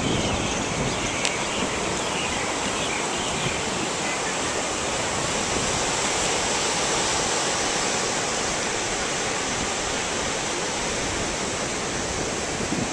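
Steady wash of surf breaking on a sandy beach.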